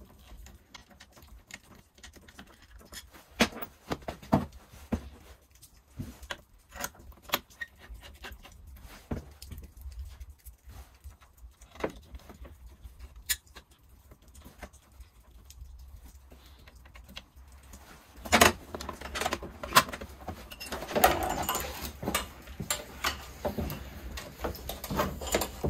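Scattered small clicks and light metallic rattling of screws, a hand tool and parts being handled as the tank lever is screwed onto an ATV's handlebar throttle housing, getting busier about two-thirds of the way in.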